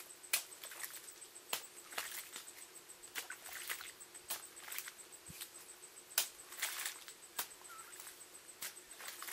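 Hoe blade chopping and scraping into wet mud and shallow water. There are irregular sharp strikes, about two a second, with wetter slapping smears mixed in.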